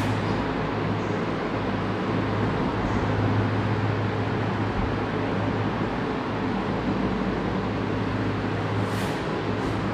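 Steady background hiss with a constant low electrical hum.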